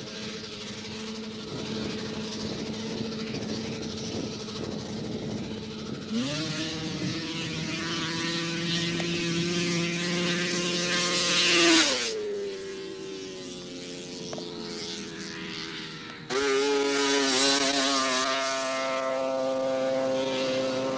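Two-stroke snowmobile engines at a grass drag strip. About six seconds in, one sled launches: its pitch jumps up and holds high, is loudest as it goes past near twelve seconds, then falls away. About sixteen seconds in, a loud, close engine cuts in suddenly and runs at a steady high pitch.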